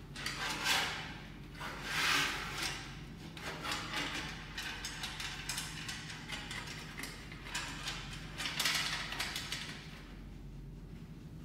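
Ratchet-like clicking and rattling of metal parts as an aluminum reagent shelf frame is fastened together, with three louder bursts, over a steady low hum.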